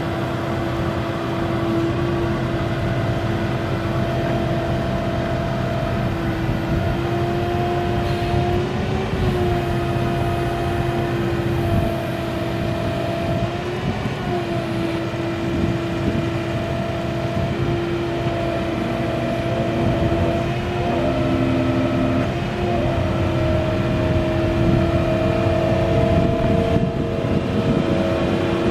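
Dodge Ram 5500 bucket truck's 6.4-litre gas V8 running steadily, with a steady whine over the engine note that dips briefly a few times.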